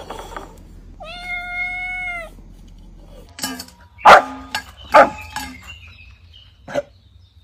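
A kitten's single long, level meow lasting over a second. It is followed by a few loud, short, sharp sounds about a second apart.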